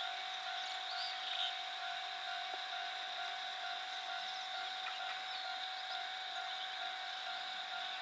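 Japanese level-crossing warning bell ringing steadily, its electronic tone repeating without a break, with a few faint high chirps over it.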